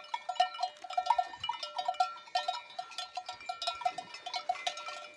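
Cowbells on grazing Simmental cows clanking in short, irregular clinks as the cows move their heads and feed.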